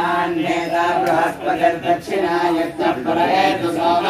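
A group of male voices chanting Vedic mantras together in unison, without pause.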